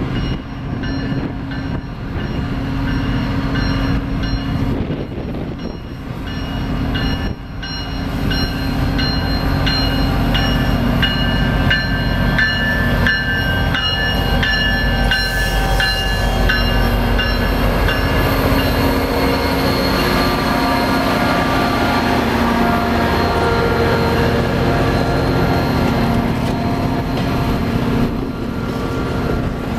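Alaska Railroad SD70MAC diesel-electric locomotives running past at slow speed with a steady low engine hum. About eight seconds in, the passing train adds a chorus of high-pitched steel wheel squeal and scattered clicks, which give way to rolling noise as the passenger cars go by.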